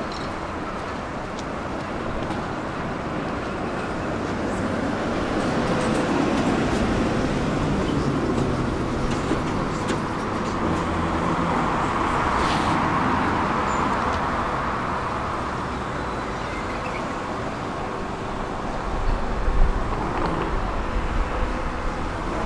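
Street traffic and a tram running close past the platform. The rumble swells to a peak near the middle and then fades.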